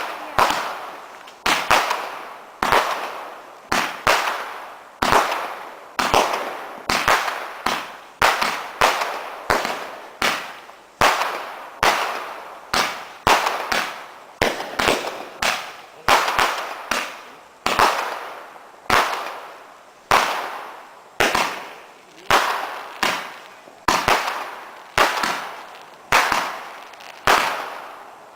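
'Satanic Desecration' firework barrage cake firing shot after shot: a steady series of sharp bangs, about one and a half a second, each fading off quickly before the next.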